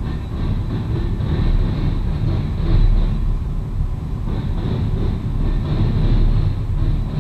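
Freight train cars rolling past close by: covered hoppers and a centerbeam flatcar, with a steady low rumble of steel wheels on rail and a thin high whine riding over it.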